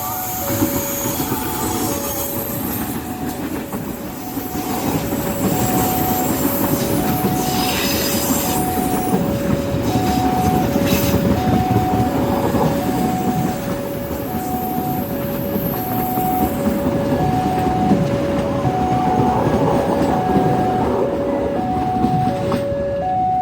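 A train running past with rumble and clatter of wheels on the rails and some wheel squeal. Over it, a level-crossing warning alarm repeats a steady two-tone signal, high and low alternating about once a second each.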